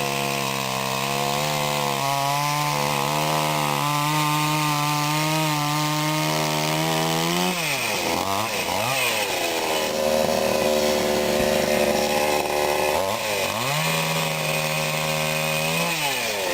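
Sadko GCS 510E two-stroke petrol chainsaw running hard, sawing through firewood logs. Its pitch holds steady for several seconds, then drops and climbs sharply twice about eight seconds in, and dips and rises again near the end.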